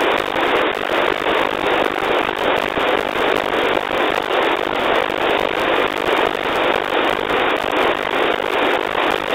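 NOAA 15 weather satellite's APT image signal, FM-demodulated by an RTL-SDR receiver: mostly steady static hiss with an even, rapid pulsing running through it.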